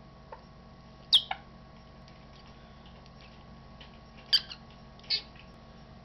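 African grey parrot making short, sharp clicks, each with a brief high squeak, one about a second in and another past four seconds, then a short high chirp about a second later.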